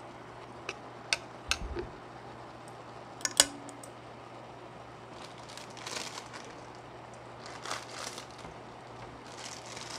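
Metal chopsticks clicking and tapping against a cooking pot while stirring ramen noodles in broth, a handful of sharp taps in the first few seconds, the loudest about three and a half seconds in. Then the broth simmering, with soft bubbling bursts now and then.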